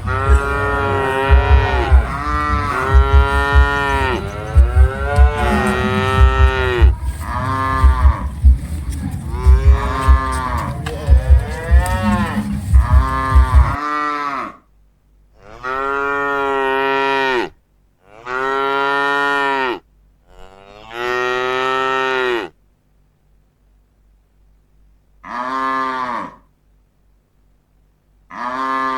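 Cattle mooing: long drawn-out moos that rise and fall in pitch. For the first half they come one after another, some overlapping, over a low rumble that cuts off abruptly about halfway. After that come five separate moos with silent gaps between them.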